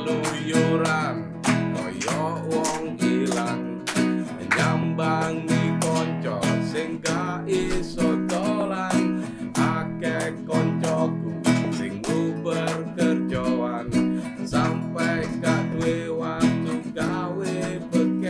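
A small nylon-string acoustic guitar strummed in a steady rhythm, with a man singing along.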